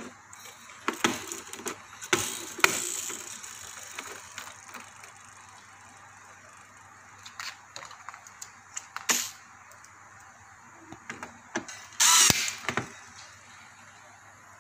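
Scattered plastic clicks and knocks from a circuit board being handled and pushed into place in a Mind Galaxy MD-888AC air cooler's plastic housing, with a louder short scrape about twelve seconds in.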